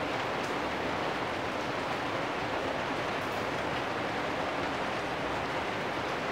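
Steady rain falling on corrugated metal roofs and a wet lane, an even hiss with a few sharper drop ticks.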